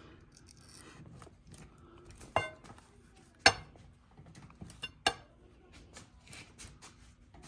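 A few sharp metallic clinks and knocks, one with a brief ring, with faint rubbing between them, as a solid tire on a scooter wheel is worked and pushed into place on the tire-changing machine. The loudest knock comes about three and a half seconds in.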